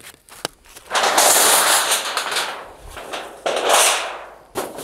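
Thin rolled titanium stovepipe sheet being unrolled along the ground, rattling and crackling in two long stretches with sharp clicks between them.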